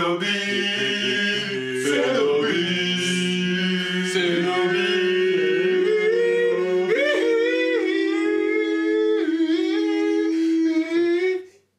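Several men singing a cappella in harmony, holding long notes. About seven seconds in the lower voices drop out and one long final note is held, then cut off just before the end.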